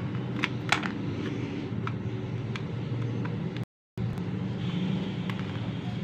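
Screwdriver tip ticking against the plastic housing and circuit board of a Targus numeric keypad being taken apart: a handful of short, sharp clicks, most of them in the first half, over a steady low background hum. The sound cuts out for a moment about two-thirds of the way through.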